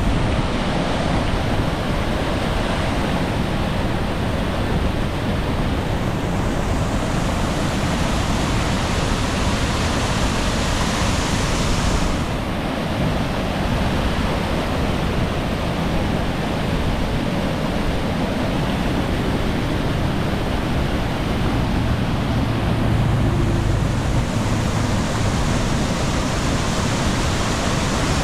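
Lake Michigan waves breaking on the shore in a strong wind: a steady wash of surf that swells and eases, with wind rumbling on the microphone.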